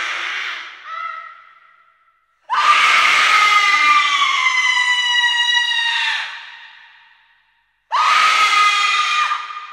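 High-pitched human screams: one trailing off at the start, then a long scream of about four seconds whose pitch sags slightly, and a shorter one near the end, each dying away with an echo.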